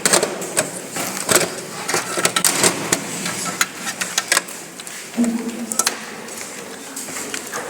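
Irregular clicks, knocks and clatter of computer parts being handled and fitted into a desktop system unit's case during reassembly.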